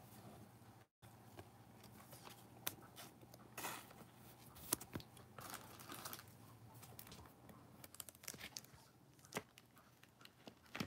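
Faint handling noise of trading cards being moved by a gloved hand: scattered light clicks and taps as cards are set against plastic stands, with short slides and rustles of card and glove.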